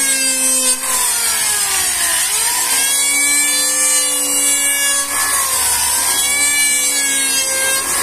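Electric hand planer running as it shaves a wooden board, its motor whine with a high hiss of cutting. The pitch sags about two seconds in and again near six seconds as the blades bite under load, then climbs back.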